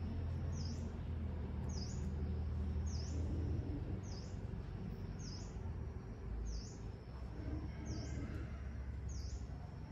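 A bird repeating the same short, high chirp about once a second, evenly spaced, over a steady low hum.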